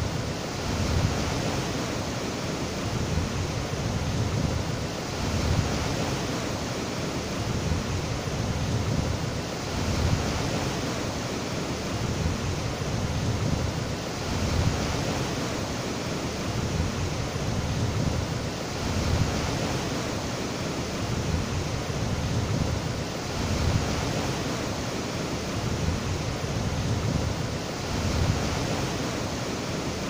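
Swollen river rushing through white-water rapids over rocks: a steady rushing of water that swells a little every few seconds.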